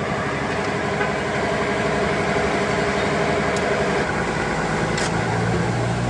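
Single-tub top-loading washing machine on its spin cycle, the motor and drum running with a steady whir and hum as the tub spins a wet carpet dry. A stronger, lower hum comes in about two-thirds of the way through.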